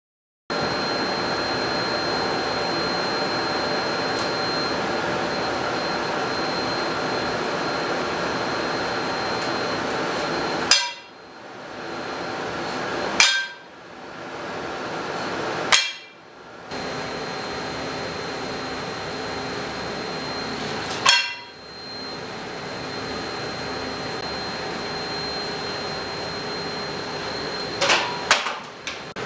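Sharp clacks of an artificial pancake striking a metal frying pan as it is flipped: four single clacks a few seconds apart, then a quick cluster near the end. Under them runs a steady machine hum with a thin high whine.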